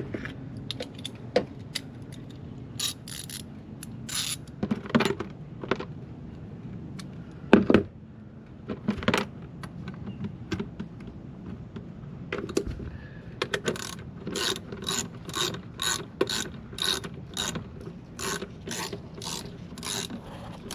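Hand ratchet wrench clicking as bolts are run in, with scattered knocks of parts being handled; in the second half the clicking settles into steady back-and-forth strokes, about two or three a second.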